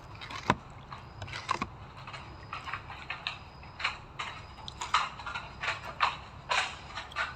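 Snack packets being handled: irregular crinkling and clicking of plastic wrappers, a sharp crackle every second or so.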